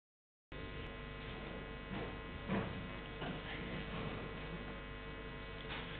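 Steady electrical hum from the microphone and sound system, starting about half a second in, with a few faint bumps and rustles in the middle.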